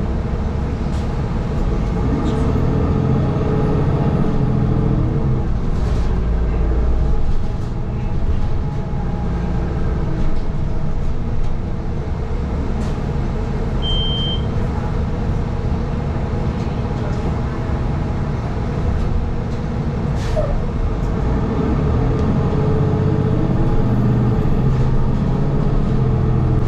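City transit bus under way, heard from inside the cabin: steady engine and road rumble, with the engine note rising and falling as the bus speeds up, once early and again near the end. A single short beep sounds about halfway through.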